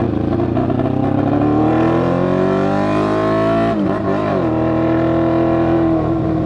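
Yamaha FZ6's inline-four engine pulling away and revving up, its pitch rising for nearly four seconds, dropping at a gear change about four seconds in, then running steady. The rider calls the noise the bike is making strange.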